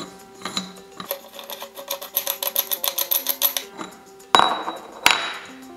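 Background music, with the metal parts of a manual meat grinder being handled: a fast run of ticks, then two loud metallic knocks under a second apart near the end.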